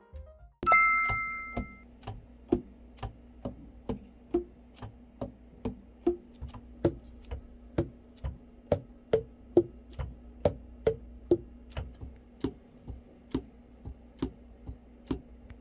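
A ringing chime, then a steady, regular run of sharp clicks, about two a second, each with a slightly different pitch, over a faint steady hum.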